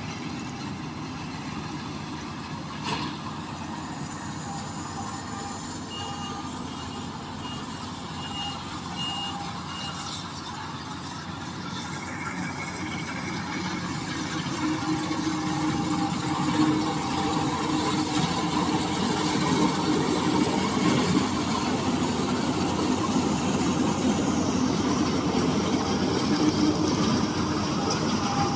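Combine harvester running steadily, with a string of short evenly spaced warning beeps a few seconds in, as from a reversing alarm. The engine grows louder about halfway through, as if the machine is coming closer or working harder.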